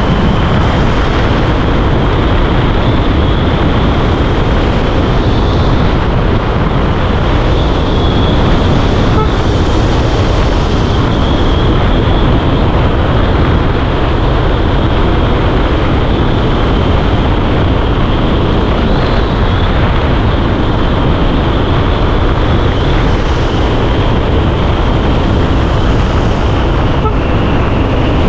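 Wind rushing over the microphone and tyre and road noise from an electric scooter riding at steady speed, a dense, unbroken rush with a thin steady high whine over it.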